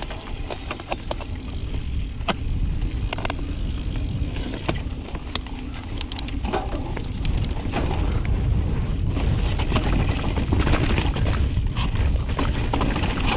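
Mountain bike (2018 Intense Carbine 29er) riding a dirt and rock trail: a continuous low rumble of tyres and wind on the action camera's microphone, with scattered sharp clicks and rattles from the bike and stones. It grows louder from about eight seconds in.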